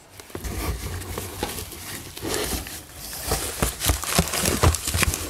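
Thin plastic bags rustling and crinkling as they are handled inside a cardboard box, with many small clicks and a few low knocks and bumps.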